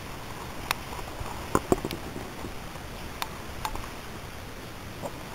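Handling noise: scattered light clicks and taps, about eight in all, as plastic model horses and the handheld camera are moved about, over a faint steady hiss.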